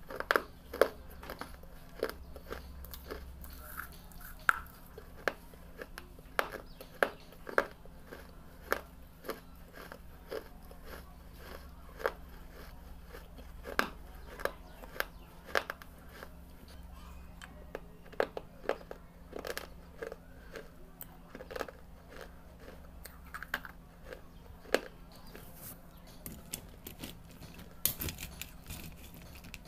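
Someone biting and chewing pieces of red clay brick: sharp, irregular crunches, often one or two a second and sometimes in quick clusters, over a faint steady low hum.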